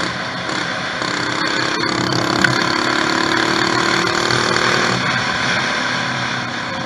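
Mini bike's small engine running under way with wind and road noise rushing over the microphone; the engine note steadies and rises slightly for a few seconds in the middle.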